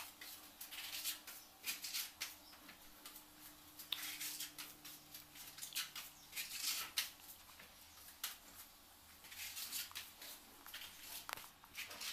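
Steel putty blade spreading wall putty across a plaster ceiling for the first coat: faint scraping strokes that come in irregular runs.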